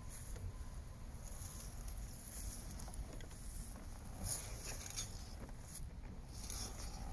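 Soft, irregular rustling over a low wind rumble on the microphone, with a few faint clicks; no steady motor sound.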